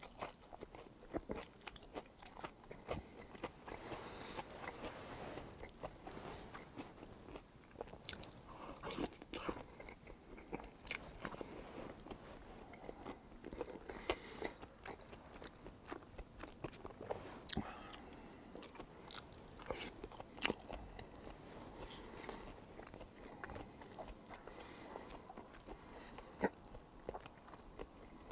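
A person eating tteokbokki close to the microphone: repeated biting and chewing, with many short irregular clicks throughout.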